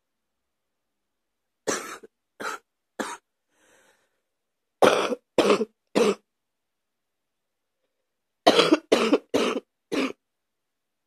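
A person's deep cough coming in three fits: three coughs about two seconds in, three more about five seconds in, then four in quick succession near the end, with silence between the fits.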